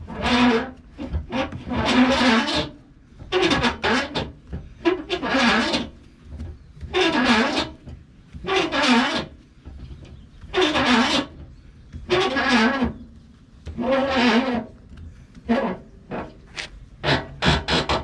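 Spare-tire winch under a Toyota 4Runner being cranked clockwise to wind its empty cable back up: a rasping, grinding stroke with each turn of the crank, about one every two seconds.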